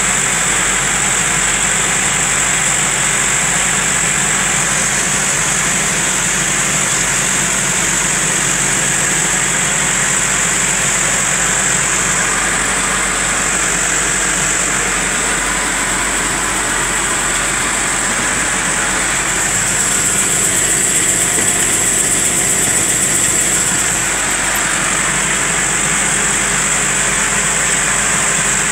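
Massey Ferguson 3065 tractor's diesel engine running steadily at working speed, heard from inside the cab, with a steady high-pitched whine over it. It gets a little louder for a few seconds past the middle.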